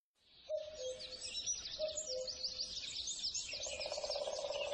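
Forest birdsong: many birds chirping and trilling in high, quick phrases. A lower two-note falling call sounds twice in the first two seconds, and a lower, rapidly pulsing trill joins about three and a half seconds in.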